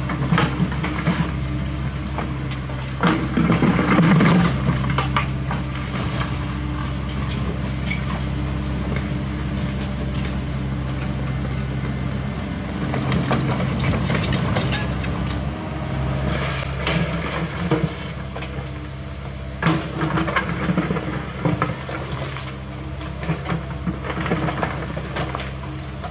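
CAT 307E mini excavator's diesel engine running steadily, with the steel bucket crunching and scraping through soil and stones several times.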